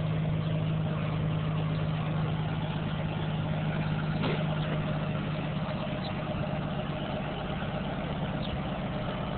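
Vehicle engine running with a steady low drone; a single click about four seconds in.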